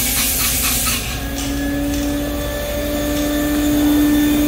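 Air hiss of a paint spray gun that cuts off about a second in, followed by a steady motor hum that slowly grows louder.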